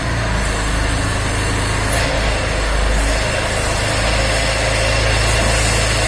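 Wheel loader's diesel engine running steadily with a deep hum.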